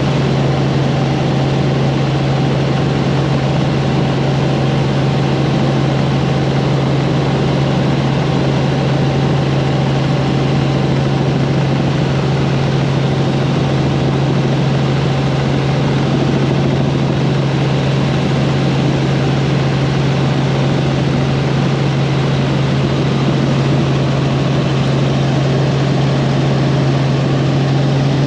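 Helicopter in flight: steady engine and rotor noise with a strong, unchanging low hum.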